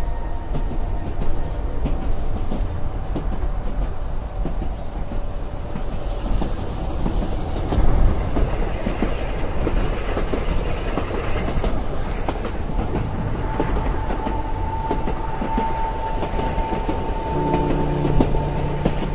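Passenger train running on the track, heard from inside a carriage: a steady rumble with clatter of the wheels. A steady high tone sounds through the second half, and steady low tones come in near the end.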